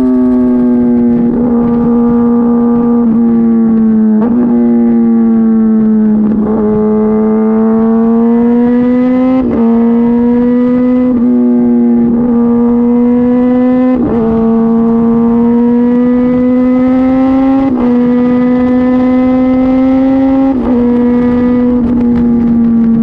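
Kawasaki ZX-10RR's inline-four running loud through an Arrow exhaust with the dB killer (baffle) removed, heard from the moving bike. The engine note holds a steady pitch that slowly climbs and dips, broken every couple of seconds by a short sharp crack as the note steps.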